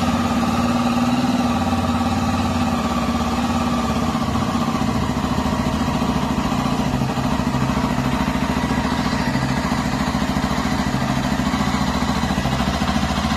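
Honda XRE's single-cylinder engine idling steadily just after starting, with the mechanical noise it was brought in for. The noise was traced to a worn timing chain and a cam chain tensioner that was letting go.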